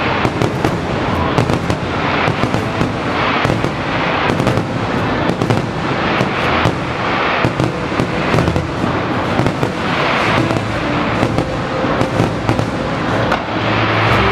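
Fireworks display: a dense, continuous barrage of aerial shells bursting and crackling, with no break.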